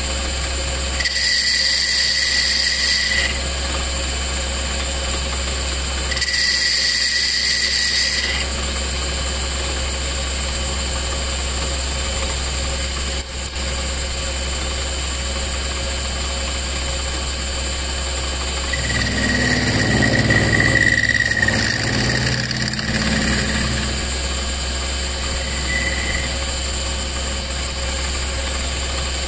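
Metal lathe running steadily with a low hum as it turns a new ferrule on a carbon fiber cue shaft. The tool bit cutting the ferrule gives a high-pitched squeal twice, about two seconds each, in the first eight seconds. A louder, lower rumble lasts a few seconds near the middle.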